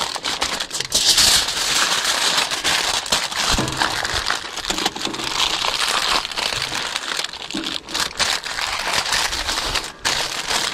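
Aluminium foil being folded and crimped by hand around a large piece of meat: dense crinkling and crackling with sharp crumples throughout.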